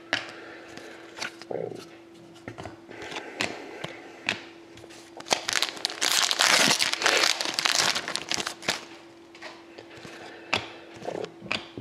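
Trading card pack wrapper crinkling and tearing as the pack is opened, densest in the middle, with scattered clicks and taps from cards being handled. A faint steady hum runs underneath.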